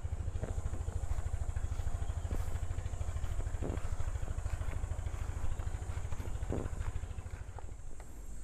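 Low, steady throb of a small engine running, with a faint high steady buzz and a few light rustles and clicks.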